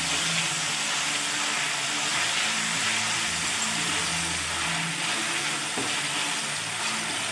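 Chopped ginger and soy sauce sizzling steadily in a non-stick frying pan while a wooden spatula stirs them, over a faint steady low hum.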